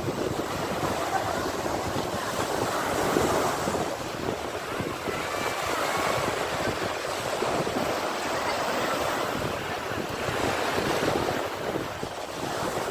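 Sea waves washing and breaking on a shore in a continuous rush of surf. The surf swells and eases gently several times.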